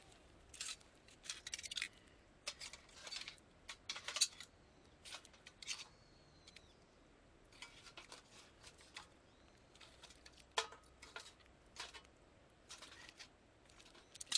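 Irregular short crackles and metallic clicks at a small folding wood-burning camp stove as it is tended with metal tongs.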